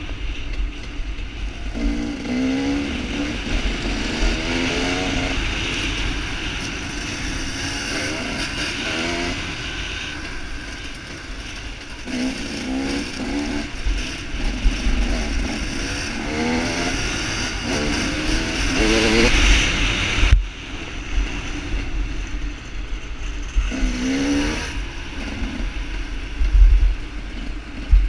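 Dirt bike engine revving up and down repeatedly as the bike accelerates and shifts, with wind rushing over a helmet-mounted microphone; the rush drops off abruptly about two-thirds of the way through.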